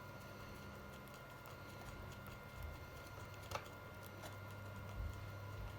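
Faint clicks and taps of RC model airplane parts being handled and pressed into place, with one sharper click about three and a half seconds in and a knock near five seconds, over a steady low hum.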